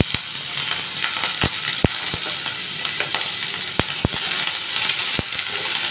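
Chopped onions sizzling in hot ghee in a non-stick pan, a steady frying hiss, as a silicone spatula stirs them. About seven sharp clicks are scattered through it.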